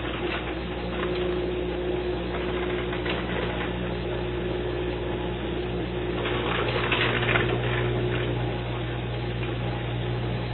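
Viking Professional 301 (VDB301SS) dishwasher running: a steady motor hum under the hiss of water spraying, with louder spraying about six to eight seconds in. The owner considers it abnormally loud for a brand-new machine, about 65 dB, while Viking calls the sound normal.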